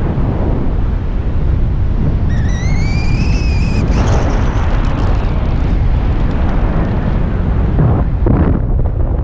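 Heavy wind buffeting the microphone, a continuous low rumbling rush. About two seconds in, a high whistle-like tone rises and then holds for about a second and a half.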